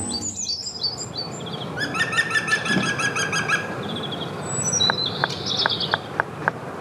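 Songbirds chirping and trilling. Near the end a green woodpecker pecks at its nest hole in a tree trunk: a run of sharp taps, about four a second.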